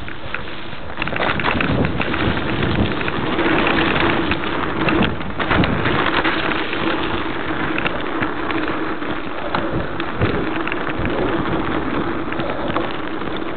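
Mountain bike riding fast down a dirt forest trail: a continuous clatter of tyres on dirt and grit and the bike rattling over the bumps, with a steady hum joining from about three seconds in.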